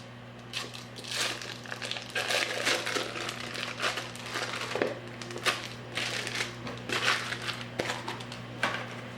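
A package of cream cheese being unwrapped by hand, its crinkly wrapper crackling in irregular bursts.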